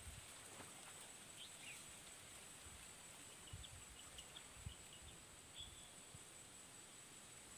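Near silence: quiet open-air ambience with a steady high-pitched insect drone and a few faint bird chirps, with a few soft low thuds.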